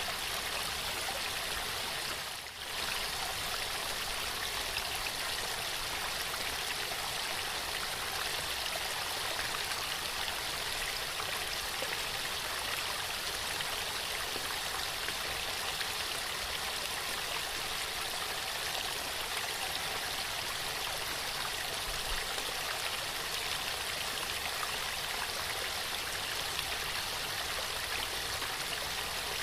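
Waterfall: steady rushing and splashing water, with a brief dip in level about two and a half seconds in.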